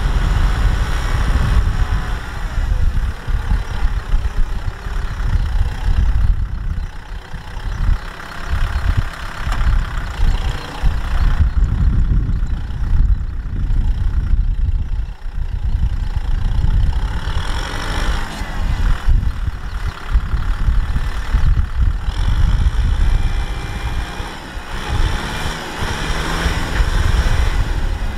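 Kubota M6040SU tractor's diesel engine working under load as the tractor drives through deep mud, its sound rising and falling.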